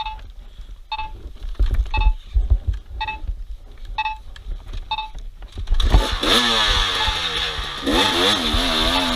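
Short electronic beeps about once a second over a low rumble. About six seconds in, an off-road vehicle's engine starts revving, its pitch rising and falling, and this is the loudest part.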